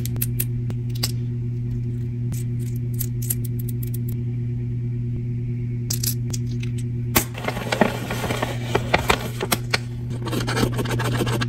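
Light clicks and taps of long fingernails on tiny cardboard and plastic miniature candy packages. From about seven seconds in, a stretch of crinkling and rustling with sharper snaps as a folded paper leaflet is opened out. A steady low music drone plays underneath.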